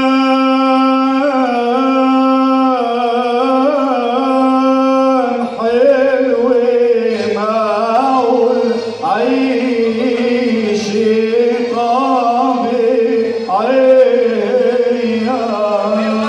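A man singing an Arabic folk melody through a microphone in long, ornamented held phrases that waver and glide in pitch, over an electronic keyboard holding a steady drone note.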